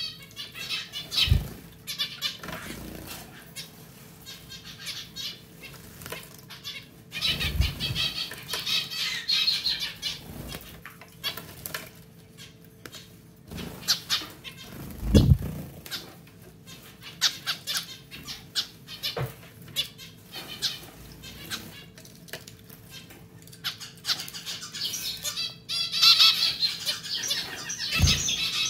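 Zebra finches bathing in a pet water fountain: bursts of rapid wing-fluttering splashes in the water, coming and going several times, with a few dull thumps. A faint steady hum runs underneath.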